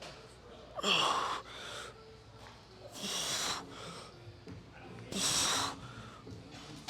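A man's forceful breathing: three hard exhales, about one every two seconds, with quieter breaths between them, the effort of reps on a single-arm seated cable row.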